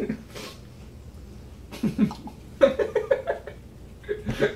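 A man laughing in a quick run of short stifled bursts with a mouthful of chewy candy, about two and a half seconds in, with a cough-like burst near the end.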